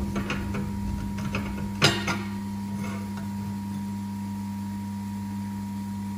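Light knocks and scrapes of a galvanized steel plate being wiped and handled on a steel worktable, the loudest pair of knocks about two seconds in. A steady machine hum runs underneath.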